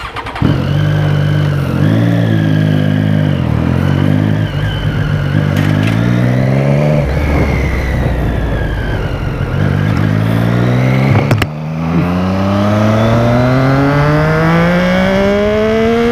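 Motorcycle engine accelerating hard, its note climbing in short steps with drops between, then rising steadily for several seconds as it pulls along the road. A sharp click with a brief dip in the engine sound comes about eleven seconds in.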